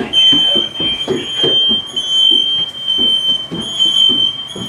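Several hardwired household smoke alarms sounding at once: a loud, shrill, steady tone that barely breaks. It is a false alarm, which the firefighters put down to one bad detector setting off the rest.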